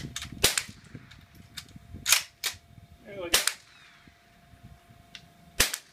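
Gunshots on a shooting range: about six single sharp shots at irregular intervals, near the start, around two seconds in, just after three seconds and near the end.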